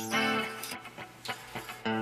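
Gibson Explorer electric guitar being retuned: single open strings are plucked and left to ring, with a fresh pluck just after the start and another near the end, while the tuning pegs are adjusted for a new tuning.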